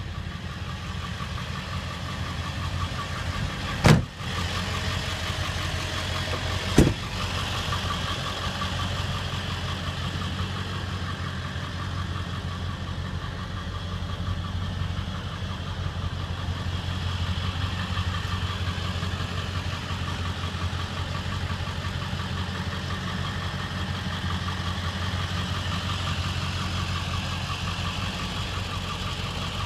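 Ford 7.3 L Powerstroke V8 turbo diesel idling steadily with a fast ticking clatter. Two sharp knocks come through, one about four seconds in and another about three seconds later.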